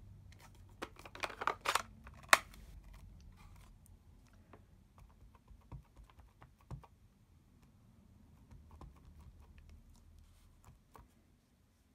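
A rubber stamp being inked on an ink pad and pressed onto cardstock: a quick run of light taps and clicks with one sharp knock about two seconds in, then scattered faint taps.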